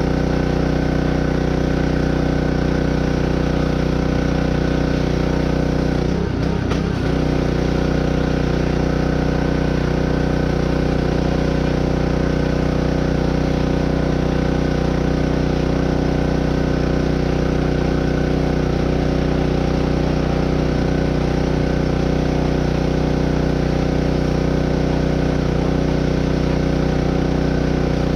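An engine idling steadily, with a brief uneven patch about six seconds in.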